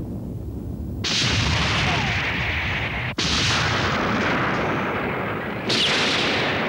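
Cartoon explosion sound effects: a low rumble, then a loud blast about a second in that holds for two seconds and cuts off suddenly, with a second blast at about three seconds and a third near the end.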